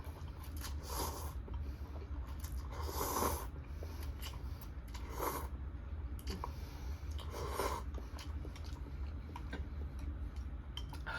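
A person eating hot spicy ramen, making four short, loud breathy mouth-and-nose sounds about two seconds apart, over a steady low hum.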